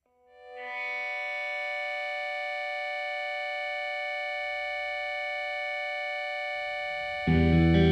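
Background music: a single held chord fades in over the first second and stays steady, then the full band with electric guitar comes in, much louder, near the end.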